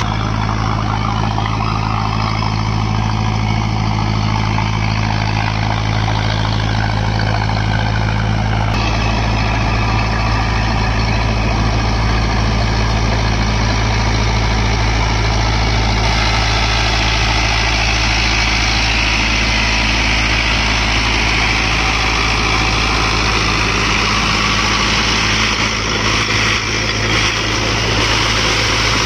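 Mahindra Arjun Novo 4WD tractor's diesel engine running steadily at constant speed, working a rotary tiller through wet paddy-field mud.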